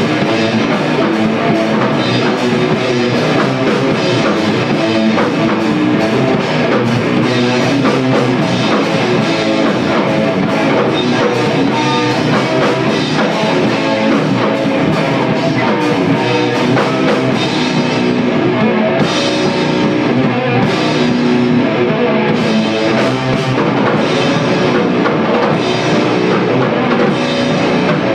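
A live rock band playing loud and continuously: drum kit with frequent cymbal hits, electric guitar and bass.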